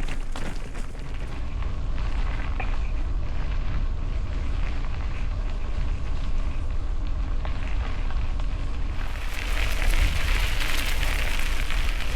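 Mountain bike rolling over a forest road: tyre crunch and rattle under steady wind rumble on the microphone. About nine seconds in the sound turns to a brighter, louder hiss.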